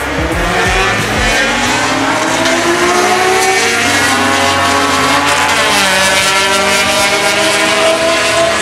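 Car engine accelerating hard, its pitch climbing steadily for several seconds, with a few low thumps in the first second.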